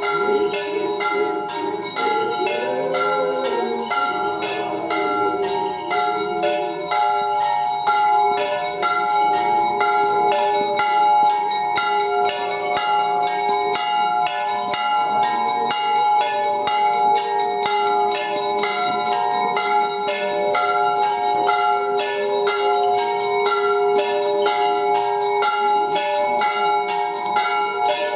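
Church bells ringing a continuous festive Easter peal: about two quick strikes a second over the steady ring of the larger bells.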